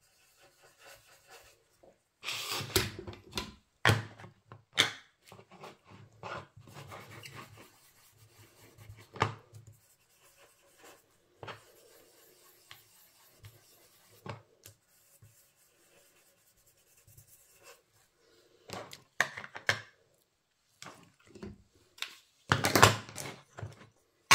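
Ink blending brush rubbed and swirled over cardstock in short scratchy bursts with pauses between them, the loudest burst near the end.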